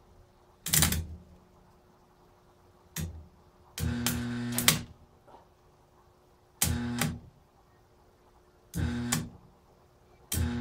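An arc welder laying short tack welds on steel: six separate bursts of buzzing, crackling arc, most well under a second and one lasting about a second, with short pauses between.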